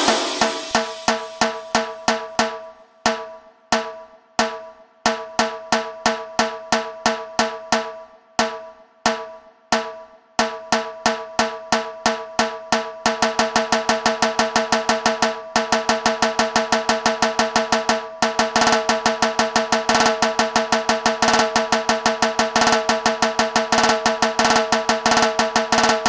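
Dhol-tasha drumming in a DJ track: sharp, ringing drum strokes in a driving rhythm over a steady pitched ring, first in spaced groups with short breaks, then about halfway through a fast, unbroken run of strokes.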